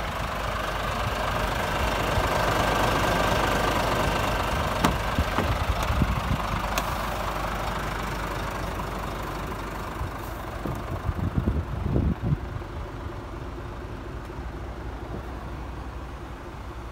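Scania R450's 13-litre inline-six Euro 6 diesel idling with a steady rumble and light clatter. A few sharp clicks come about a third of the way in and low knocks about two-thirds in, and the idle goes duller and quieter near the end, heard from inside the cab.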